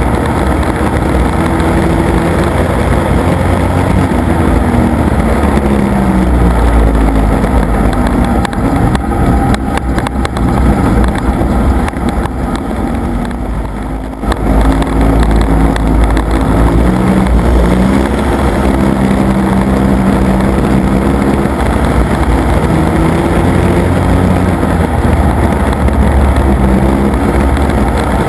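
In-cabin sound of a Factory Stock Chevrolet Monte Carlo dirt-track race car at speed. The engine note rises and falls in long sweeps, revving up and backing off around the track over a rough, steady rumble. About halfway through the engine sound drops away briefly, then picks back up.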